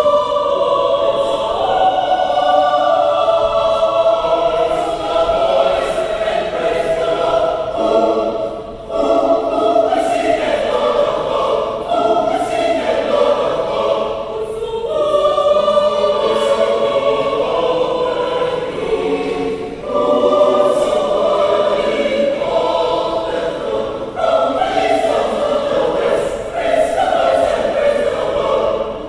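A large choir singing, with short breaks for breath between phrases.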